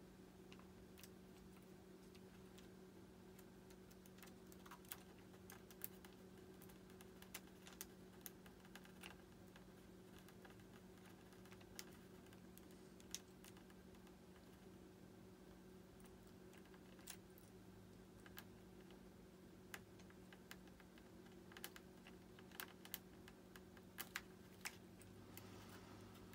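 Near silence, broken by faint irregular clicks and taps of small parts being handled while working on RC jet retractable landing gear, over a steady low hum.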